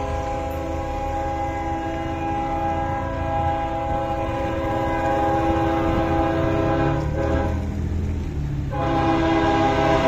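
Diesel freight locomotive's air horn blowing a long chord of several tones, with a break of about a second near the end before it sounds again, louder, over the low rumble of the approaching train.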